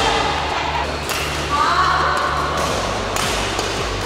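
Badminton rally: a racket strikes the shuttlecock with sharp hits, about three in four seconds.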